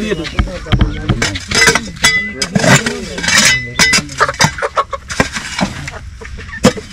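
Mamoty hoe digging into a packed earth and brick floor: repeated sharp blade strikes and scrapes, several a second at times, as chunks of brick and soil are broken loose.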